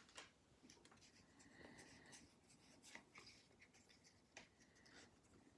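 Very faint rubbing and a few soft ticks of trading cards being slid past one another and flipped through by hand.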